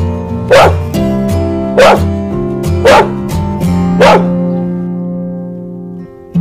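A large dog barking four times, about once a second, over background acoustic guitar music.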